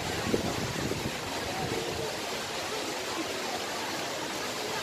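Steady rushing of flowing water, with a brief thump about a third of a second in.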